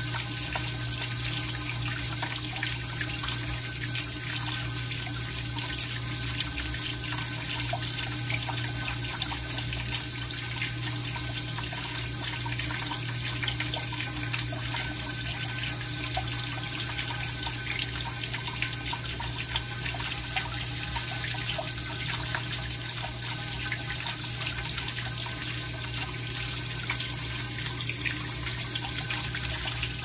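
Steady running water, an even rush with fine trickling and splashing.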